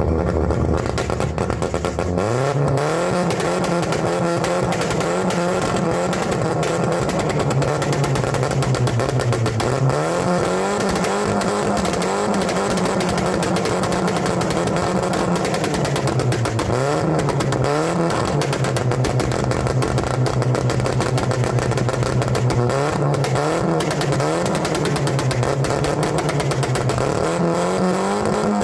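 Audi 80 2.0 inline-four engine revved up about two seconds in and held at raised revs, its pitch dropping and climbing back a few times, with crackling pops and bangs from the exhaust as it shoots flame: a 'popcorn' pops-and-bangs setup.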